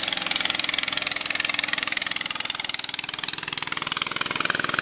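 Small longtail boat engine running steadily with a fast, even putter, the sound dipping slightly midway and building again near the end.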